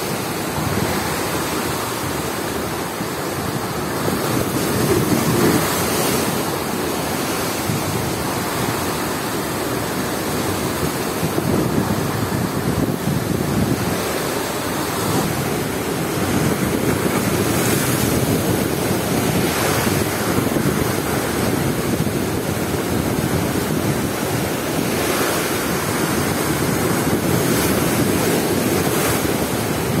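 Rough surf breaking over a stone breakwater and washing around it, with strong gusting wind buffeting the microphone. The rush of surf and wind swells and eases at times.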